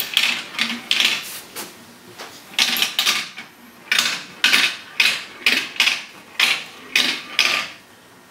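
Marbles clattering through a plastic marble run: a string of sharp plastic clicks and rattles, about two a second for a stretch, dying away near the end.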